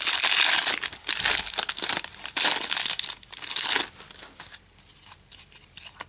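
Trading-card pack wrapper crinkling and tearing as it is handled and opened, loud and crackly for about the first four seconds, then dropping to faint scattered clicks of handling.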